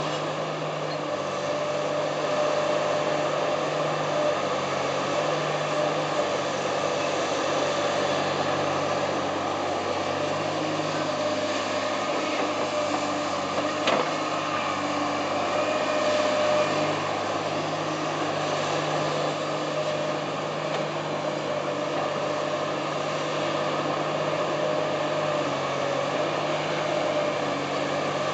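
Komatsu PC350 hydraulic excavator's diesel engine running steadily under load as it digs and loads clay, its note shifting slightly as the work changes. A single short knock sounds near the middle.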